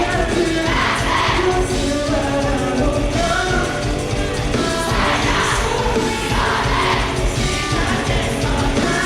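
Live rock band playing with singing over a steady drum beat, as heard from the audience.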